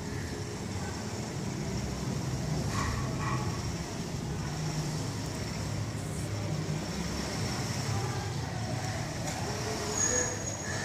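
Steady low rumble of distant urban traffic, with a few faint brief sounds about three seconds in and a short high tone near the end.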